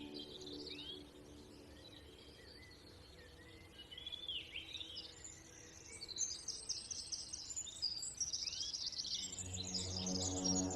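Birds calling: short upward-sweeping chirps repeated throughout, with a fast, high chattering trill from about halfway in. Soft ambient music comes in near the end.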